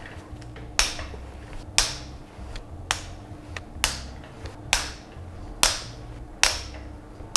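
Background music with a beat of finger snaps about once a second over a low bass line.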